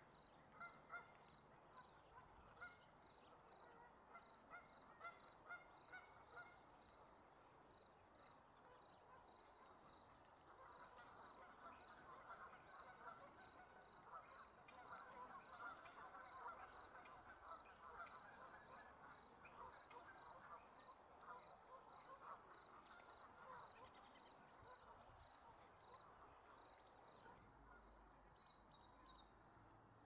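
Faint, distant Canada geese honking. Single honks come at an even pace at first, then from about a third of the way in many birds call over one another, with thin high chips from a smaller bird above them.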